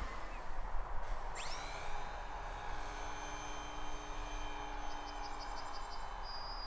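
Wind rumbling on the microphone outdoors. About a second and a half in, a faint high whine sweeps up in pitch and then holds steady. Near the end comes a short, fast high trill.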